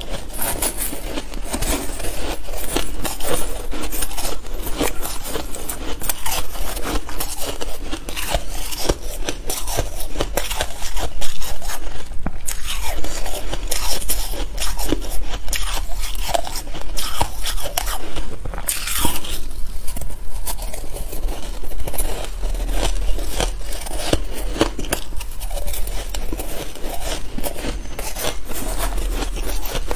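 Shaved ice being bitten and chewed, a continuous close-up crunching, mixed with a metal spoon scraping and scooping through shaved ice in a plastic bowl. The loudest crunch comes about eleven seconds in.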